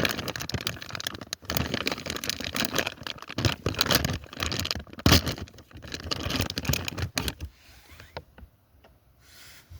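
A sack of poultry feed being handled and pulled open: dense rustling and crinkling with many small clicks, which dies down about seven and a half seconds in, leaving a few faint ticks.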